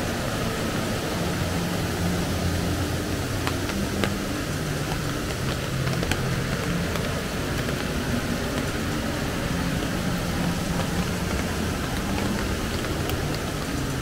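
River rapids rushing steadily over and between limestone rocks.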